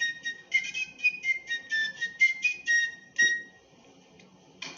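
A solo fife playing a quick tune of short, shrill notes, ending a little over three seconds in.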